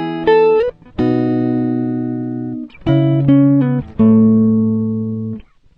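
Guitar music: a couple of short plucked chords, then a long chord left ringing and fading, in a phrase played twice.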